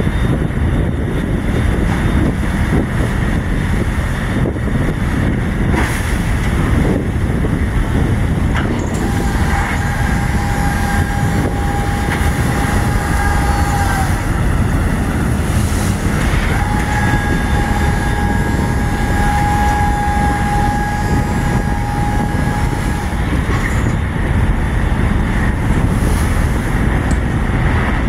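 Steady loud rumble of a tugboat's engines with wind rushing over the microphone. A steady high tone is held twice in the middle, first for about four seconds and then, after a short gap, for about six.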